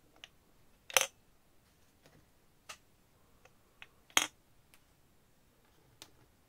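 Scattered sharp clicks and clacks from handling the plastic battery compartment of a Netatmo outdoor module while its small battery-cover screws are undone and the cover comes off. Two louder clacks come about a second in and about four seconds in, with fainter ticks between and after.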